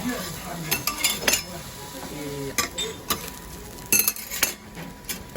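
Tableware clinking: cutlery knocking against dishes in a string of sharp clinks and knocks, with clusters about a second in and again about four seconds in.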